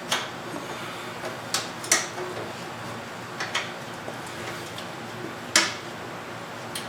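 Hand wrench and metal parts clinking against the steel of a lawn tractor's frame as bolts are worked loose: about seven sharp, irregular metallic clinks, the loudest about two seconds in and again near five and a half seconds.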